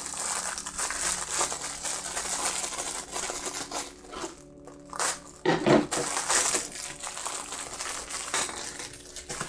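Clear plastic packaging bags crinkling and rustling as they are handled, with a short lull about halfway through followed by a louder rustle.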